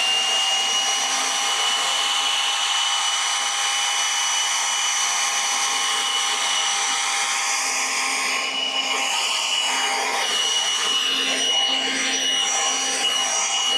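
DEWALT FLEXVOLT 60V MAX cordless leaf blower running steadily at full speed: a high electric fan whine over a rush of air. The air noise turns rougher about halfway through.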